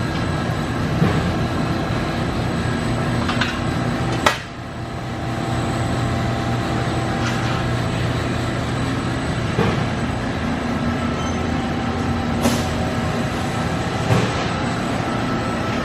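Amada RG-1030LD press brake running with a steady hum. A sharp knock comes about four seconds in, another later, and a few lighter ticks fall in between.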